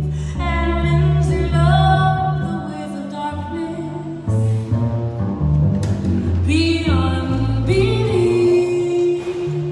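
A woman singing a sliding melody over her own upright double bass, which plays a low line of held notes beneath the voice; she holds one long note near the end.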